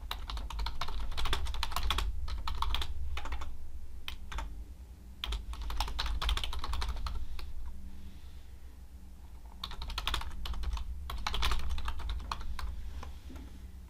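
Typing on a computer keyboard: runs of quick keystrokes with brief pauses between words and items, over a low steady hum.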